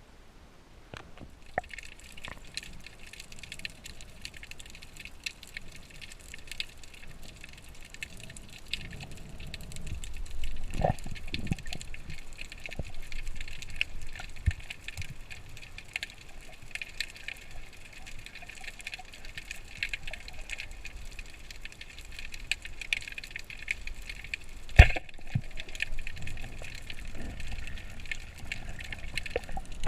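Underwater ambience: a steady fine crackle of many small clicks with low rushes of moving water, and one sharp knock near the end.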